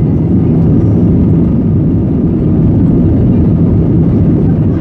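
Steady low rumble inside an Airbus A319's cabin as the jet rolls along the runway: engine noise and wheels on the pavement, heard from a window seat.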